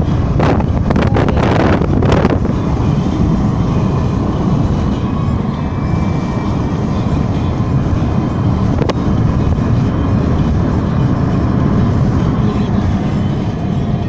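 Steady low rumble of a vehicle in motion, with a few short bursts of noise in the first two seconds and a single sharp click about nine seconds in.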